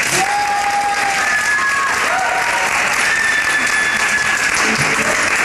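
Audience applauding a performer's entrance: steady clapping, with a few long high tones ringing out over it.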